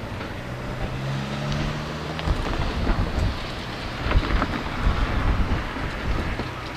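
Diesel train running: a steady low engine hum, then from about two seconds in a heavy low rumble with irregular knocks.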